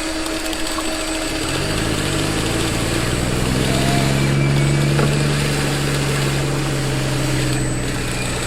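Small motor of a radio-controlled construction model running with a steady hum. Its pitch rises about a second and a half in, holds, and falls away near the end, over a constant hiss.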